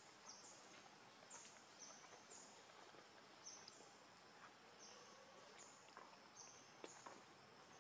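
Near silence in forest: faint short, high-pitched chirps, each falling slightly in pitch, repeat about once or twice a second over a soft hiss, with a few faint ticks.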